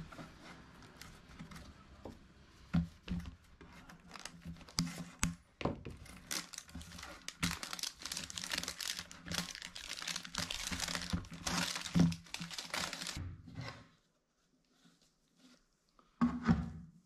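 A plastic-film label being peeled and torn off a plastic tub, crinkling and ripping with small knocks of handling, heaviest about halfway through, then stopping abruptly. A short thump comes near the end.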